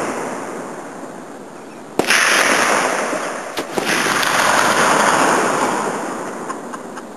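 .50 caliber rifle firing once about two seconds in, a sharp crack followed by a long rolling boom that fades over several seconds, with another short crack about a second and a half later.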